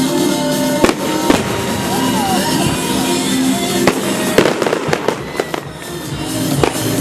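Aerial fireworks going off: sharp bangs about a second in and again around four seconds in, followed by a rapid run of crackling. Music with sustained notes plays underneath throughout.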